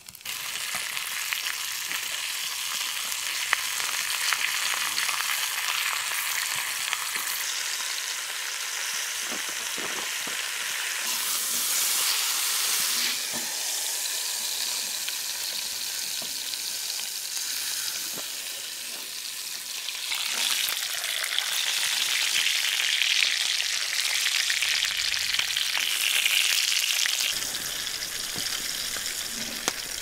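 Thick T-bone steak searing in a hot cast iron skillet on a wood stove: a loud, steady sizzle that starts suddenly and swells twice as the meat is worked in the pan.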